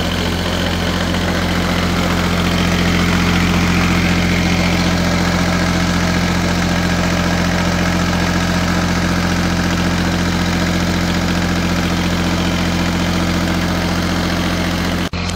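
Kubota diesel engine of a Cub Cadet 882 garden tractor idling steadily, with no change in speed.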